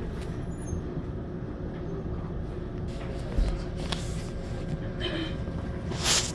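Inside a Daegu Metro Line 3 rubber-tyred monorail car pulling away from a station: a steady rumble of the running gear with a faint motor hum, and a few knocks, the loudest a short rattle near the end.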